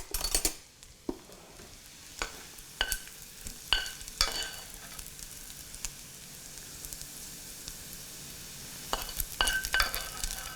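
Food sizzling steadily in a hot frying pan, with a metal utensil clinking sharply against the pan several times in the first few seconds and again in a quick cluster near the end.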